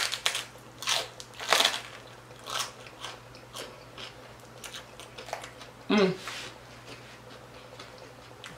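Crunchy bites and chewing of a crispy fried pork-rind (chicharrón) tostada, crackling about once a second and growing softer as the mouthful is chewed down. A short voiced hum about six seconds in.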